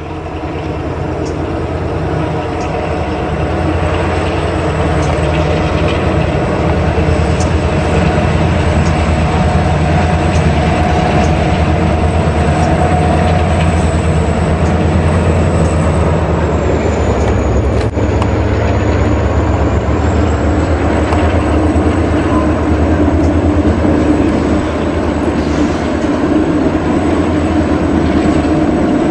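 Toy locomotive running around a plastic track: its small electric motor whirring and the wheels clattering, a steady mechanical rattle that grows louder over the first few seconds and then holds.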